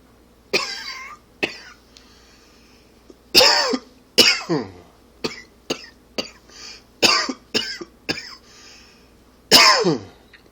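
A man coughing in repeated fits, about a dozen harsh coughs, the loudest of them ending with the voice sliding down in pitch. It is a chesty cough that the uploader puts down to allergies and smoking.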